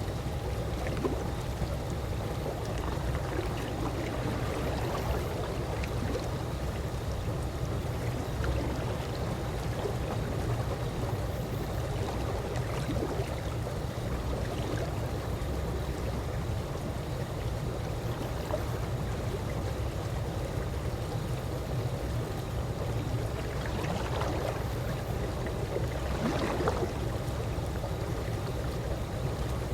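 Calm swimming pool water moving gently: a steady watery wash with small laps and trickles, two a little louder and splashier near the end.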